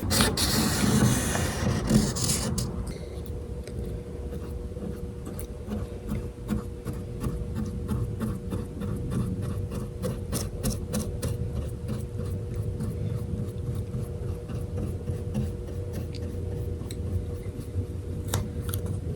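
Hand rubbing strokes on the guitar's finish, a scratchy swish repeated a few times a second, louder and hissier in the first couple of seconds, over a steady low hum.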